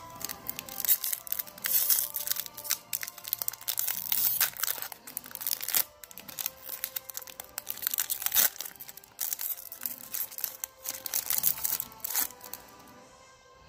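Foil wrapper of a Pokémon booster pack being torn open and crinkled by hand: a dense run of sharp crackles that stops near the end. Background music plays underneath.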